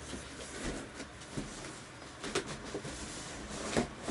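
Large cardboard guitar box being handled: scattered rustles and scrapes with a few light knocks, the clearest just past two seconds in and near the end.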